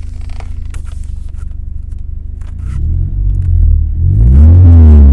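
Car engine running with a steady low hum, then revved louder about two and a half seconds in, its pitch rising and falling.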